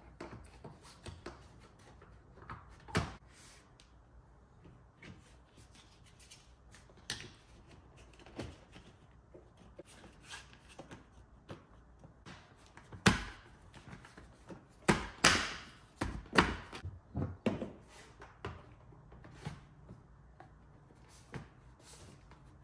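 Plastic interior trim panels of a Tesla footwell being pressed and knocked back into place: scattered clicks and knocks, with the hardest thumps bunched a little past the middle.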